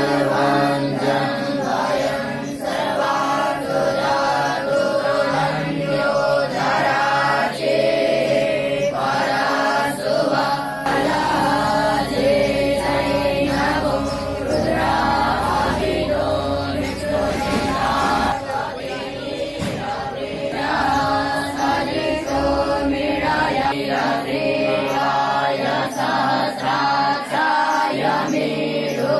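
A group of young Vedic students chanting Sanskrit Vedic mantras together in unison, without a break.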